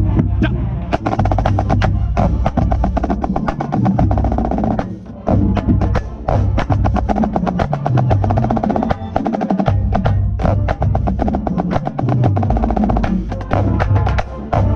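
Marching band playing, with a marching snare drum up close to the microphone playing fast rolls and rudiment patterns over brass and bass drums; the band drops out briefly about five seconds in, then comes back in.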